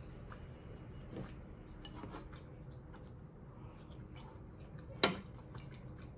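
Light clicks of a metal fork against a bowl and plate as tomato slices are picked up and eaten, with one sharper clink about five seconds in.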